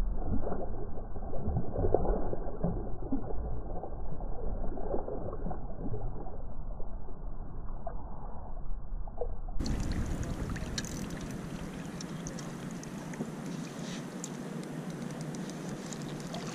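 Muffled, irregular splashing and water noise of a hooked trout thrashing at the surface as it is reeled in close. About ten seconds in the sound turns clearer and quieter, with light water noise and a few faint clicks as the fish is netted.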